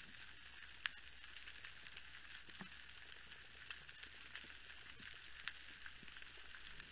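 Underwater coral reef ambience: a faint, dense crackle of snapping shrimp clicks, with two sharper, louder clicks about a second in and again past the middle.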